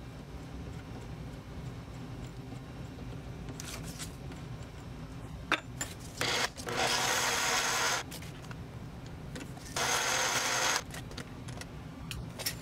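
Small steel parts being handled at a metal lathe's chuck: a few light metallic clicks, then two steady hissing bursts, one about a second and a half long and one about a second long, over a low steady hum.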